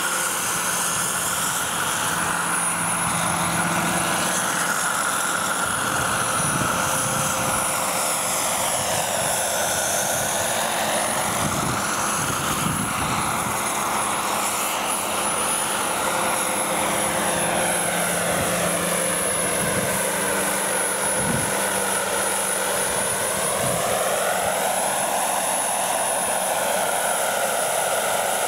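Radio-controlled model helicopters running: a steady high whine over rotor and motor noise, which sweeps slowly up and down in pitch as one flies back and forth overhead.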